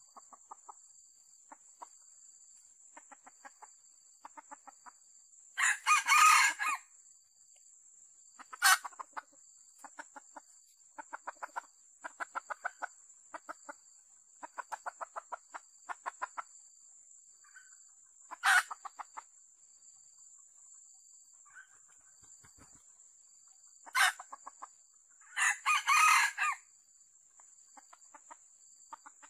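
Red junglefowl rooster crowing twice, about six seconds in and again near the end, with runs of rapid clucking and a few short, sharp calls between. A steady high insect drone runs underneath.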